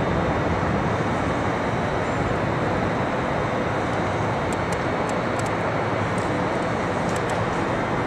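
Steady city background roar, heard as an even wash of noise, with a few faint clicks about halfway through.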